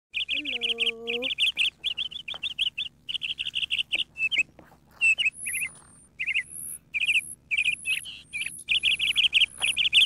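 Newborn nestling birds cheeping in rapid runs of short, high chirps, begging with their mouths open. Thinner, higher peeps join in about halfway through.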